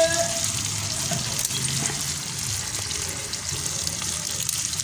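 Potato slices frying in hot oil in a wok: a steady sizzling hiss with small scattered pops.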